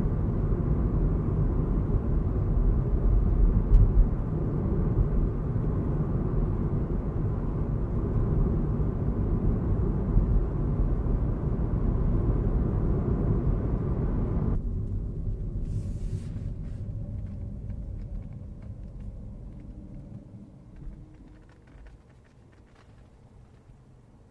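Low, steady road and engine rumble inside the cabin of a 2023 Suzuki Swift with a 1.2-litre petrol hybrid engine, driving. About two-thirds of the way in the sound abruptly loses its upper part, then fades out toward the end.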